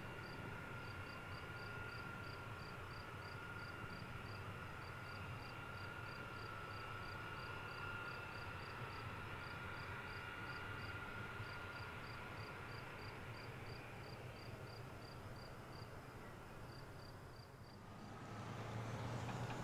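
An insect chirps steadily, about two to three chirps a second, over the faint steady whine and low rumble of a Boeing E-6B Mercury's four CFM F108 turbofan engines turning at low power. The chirping stops near the end.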